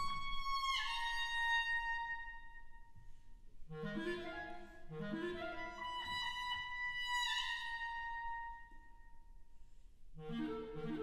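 Solo clarinet holding long high notes, each sliding down in pitch, with the wind band answering in two short low chords between them and coming in again near the end.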